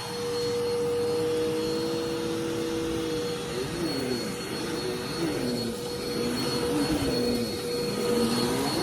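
Dirt Devil Vigor Cyclonic Pet vacuum cleaner running while vacuuming: a steady motor whine that gets louder just after the start, with a second tone that from a few seconds in wavers up and down about once a second.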